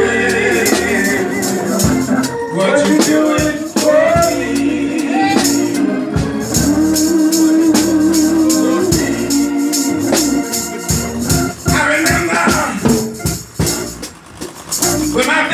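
Live gospel singing: a man sings a melodic lead into a microphone over a church organ, with hand percussion shaking a steady beat. The singing thins out briefly near the end before picking up again.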